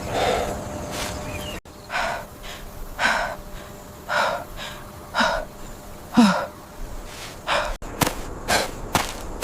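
A person's breathy gasps and grunts, repeated about once a second, one dropping in pitch a little after the middle, with sharp clicks near the end.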